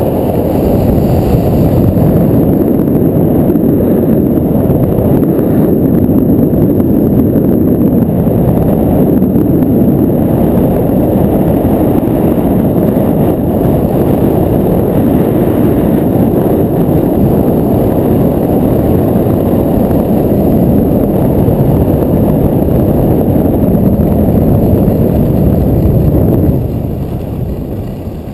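Wind rushing over the camera's microphone while skiing fast downhill: a loud, steady rumble that fades near the end as the pace slows.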